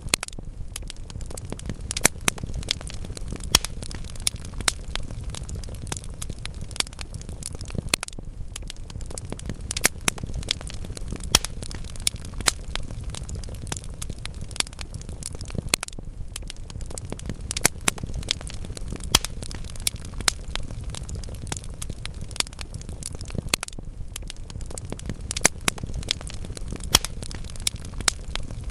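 Wood logs burning in a fireplace: irregular crackles and sharp pops, several a second, over a steady low rumble of flames.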